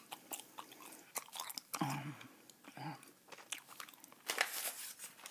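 Close-up, wet chewing of a mouthful of Bazooka bubble gum (three pieces at once), with many sharp gum snaps and clicks throughout.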